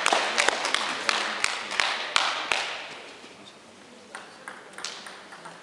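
Small crowd of spectators clapping after a point, the applause dying away over the first three seconds. Then a few single light taps follow.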